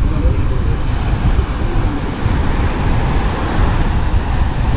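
Wind buffeting the microphone in a steady low rumble over the rush of surf, with faint voices in the first couple of seconds.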